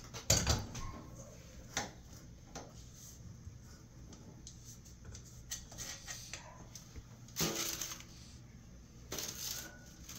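Kitchen handling noises: a few light knocks and clicks in the first couple of seconds, the loudest within the first second, then two short rustles of parchment paper on a metal baking sheet, the second near the end.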